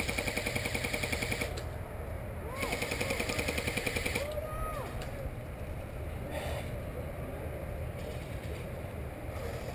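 Airsoft electric gun firing two bursts on full auto, a rapid even rattle of shots over the whine of its gearbox motor, the second burst starting about a second after the first ends.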